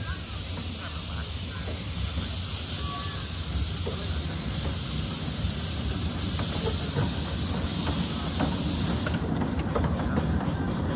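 Ride-on miniature steam train rolling along its track: steam hissing from the locomotive over the low rumble and light clicking of the cars' wheels on the rails. The hiss cuts off about 9 seconds in, leaving the wheel rumble.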